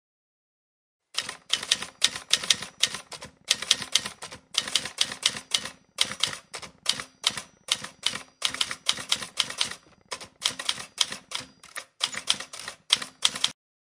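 Manual typewriter being typed on: quick runs of sharp key strikes, about five a second, broken by short pauses. The typing starts about a second in and stops just before the end.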